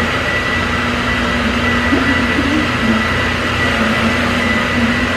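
Steady whirring hum of a running room fan, with a thin high whine held throughout.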